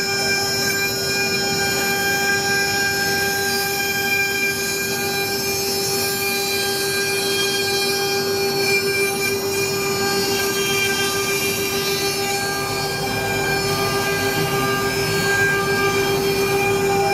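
CNC router spindle whining at a steady pitch over a hiss of cutting as it mills wood, carving a relief in raster passes.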